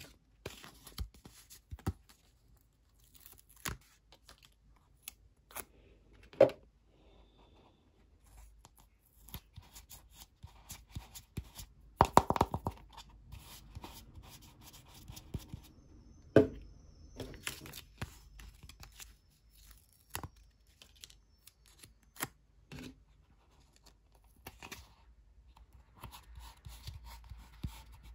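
Hands handling a hollow plastic toy egg shell: scattered knocks, taps and rustling, with a short burst of rapid crackling about twelve seconds in.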